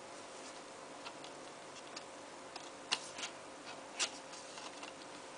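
Faint, irregular clicks and taps of DVD discs and cardboard disc sleeves being handled, with a few louder clicks about three and four seconds in, over a faint steady hum.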